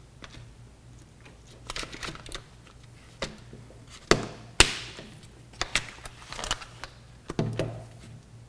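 Hard plastic humidifier parts clicking and knocking as a notched scale control insert is pressed onto a water panel's distribution tray, its notches lining up with the tray's tabs. The clicks come irregularly, with two sharper snaps about four seconds in, over a faint low hum.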